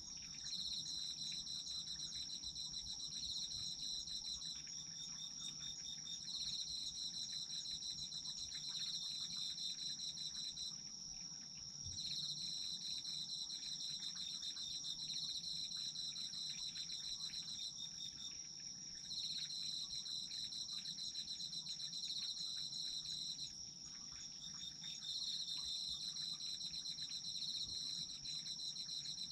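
Autumn crickets singing: one insect keeps up a steady high trill while another chirps in rapid phrases of a few seconds each, pausing briefly between them.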